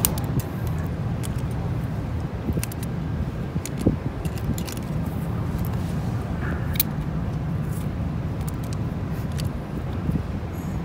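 A steady low outdoor rumble, with scattered light clicks and snips as scissors cut into a dead needlefish on concrete.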